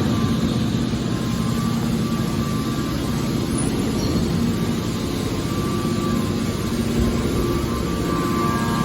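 Hydraulic metal baler running: a steady mechanical hum and drone from its hydraulic power unit, with a few steady tones that shift slightly in pitch now and then.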